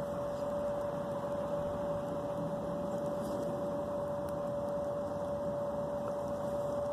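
Steady background hiss with a single steady whining tone held throughout.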